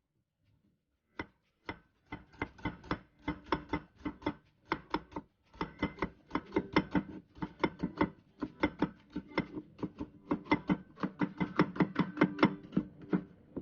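Kitchen knife chopping vegetables on a wooden cutting board: a steady run of crisp strikes, about three to four a second, starting about a second in.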